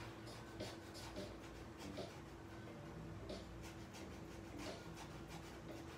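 Faint, irregular scratching strokes of a drawing tool on paper, a stroke every second or so, over a low steady hum.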